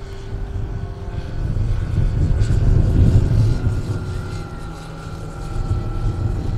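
Propeller-driven RC scale model of a Dewoitine D.26 flying past overhead. Its motor and propeller drone with a steady tone that drifts slightly lower in pitch, growing louder about two seconds in and easing off near the end.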